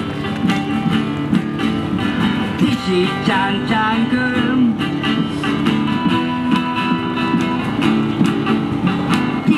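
Acoustic guitar strumming with a melody line over it: an instrumental stretch of music, with no words sung.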